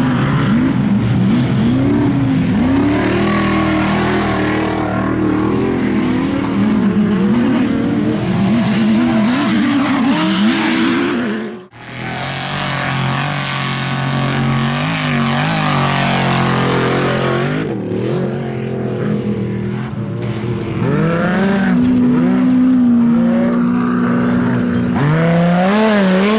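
Off-road race trucks and a Class 1 buggy revving hard as they pass one after another, their engine pitch repeatedly rising and falling. The sound cuts out briefly about halfway through.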